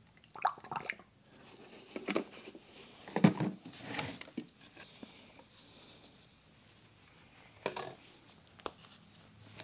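Plastic fluid jugs and a plastic funnel being handled on a shop floor: a few scattered light knocks and rustles, the loudest a clunk about three seconds in, as the jug is set down and the funnel wiped with a rag and lifted off the bottle.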